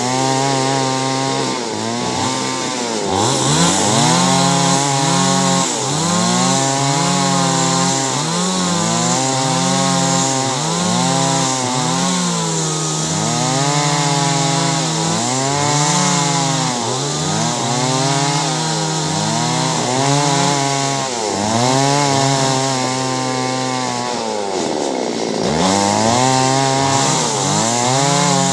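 Two-stroke chainsaw cutting clove wood, its engine pitch rising and falling over and over, about once every one to two seconds, as it revs and bogs down in the cut.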